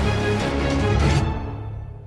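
Instrumental beat music with a regular beat; in the second half it fades down, the treble dropping away first.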